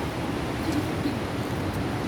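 Steady rushing noise of ocean surf breaking on the shore.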